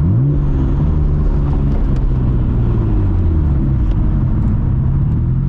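Nissan Skyline GT-R R32's RB26DETT twin-turbo straight-six running under way: its pitch climbs quickly right at the start, then holds steady and eases slightly about halfway through.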